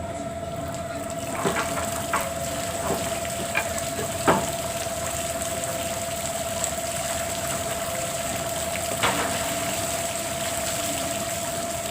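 Steady rush of river water with a faint constant hum. Several sharp clicks and knocks come in the first few seconds, the loudest about four seconds in, and one more near the end.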